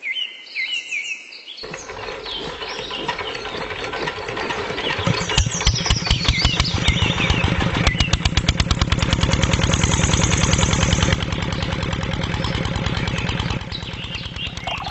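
Birds chirping, then about a second and a half in an engine starts abruptly and chugs, its beat quickening and then running steady and loud, easing off slightly near the end; birds keep chirping over it. It is most likely the mini tractor's engine.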